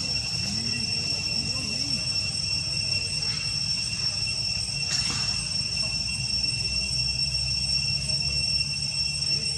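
Insects droning steadily in high, unbroken tones over a constant low rumble, with a single sharp click about five seconds in.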